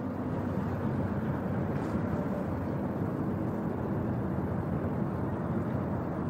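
Steady outdoor background noise: an even low rumble that holds level, with no distinct events.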